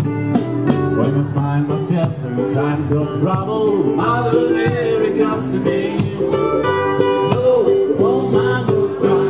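Ukuleles strummed and plucked in a live acoustic performance, with male voices singing along.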